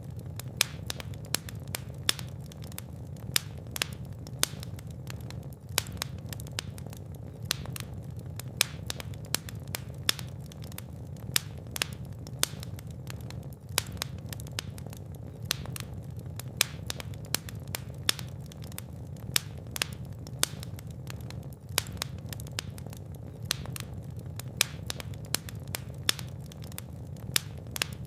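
Wood fire burning in a fireplace: a steady low rumble of flames with sharp, irregular crackles and pops several times a second.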